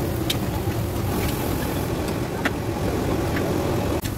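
Steady low rumble of a gas burner under a large wok of jalebi frying in oil, with a fainter hiss and a few light ticks.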